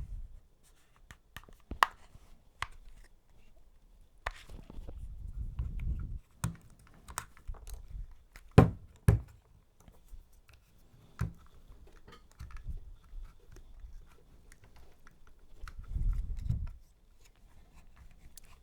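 Handling and disassembly of a Bosch 18V lithium-ion battery pack: scattered clicks, taps and scrapes of its plastic housing and tools, with two sharp knocks about half a second apart a little past halfway and stretches of low rubbing.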